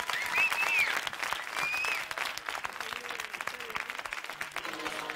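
Studio audience applauding, with a couple of shrill whistles in the first two seconds. About four seconds in, the band's first held notes start under the clapping.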